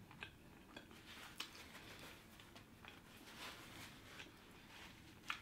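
Faint close-up chewing of a piece of sushi (rice, seaweed and avocado), with soft wet mouth clicks and smacks scattered throughout.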